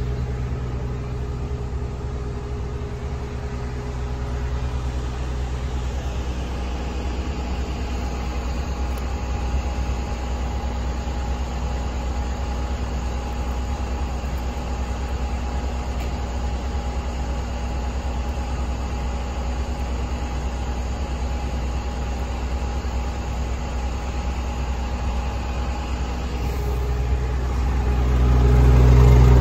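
Diesel engine idling steadily; its deep low hum drops back about six seconds in and swells up louder again near the end.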